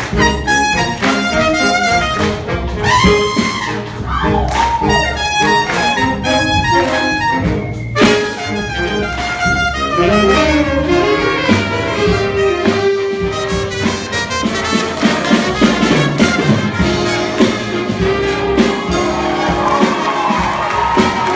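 Live big band jazz: a solo trumpet plays over the band's saxophones and brass, its line bending and sliding in pitch.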